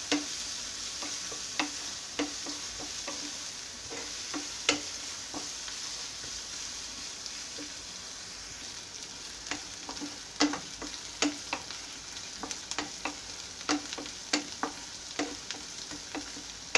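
Chopped onions sizzling in hot oil in a nonstick pan, stirred with a wooden spatula so they fry until browned. A steady sizzle runs under irregular sharp taps and scrapes of the spatula against the pan, which come more often in the second half.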